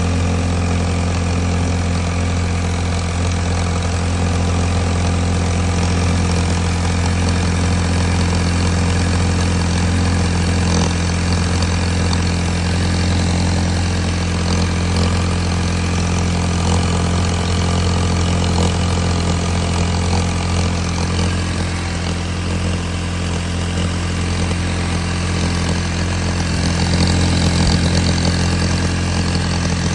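Volkswagen Golf 7 GTI TCR's turbocharged 2.0-litre four-cylinder running steadily with a light clacking, a noise the owner says comes only on a cold start and from 3,000 rpm.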